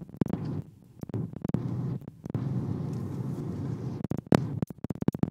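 Low, steady road and engine rumble heard inside a moving car, broken by scattered sharp clicks and knocks, the loudest about four seconds in.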